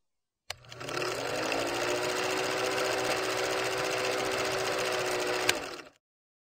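Film projector running: a fast, steady mechanical clatter with a motor hum, starting with a click and stopping abruptly just after a second sharp click near the end.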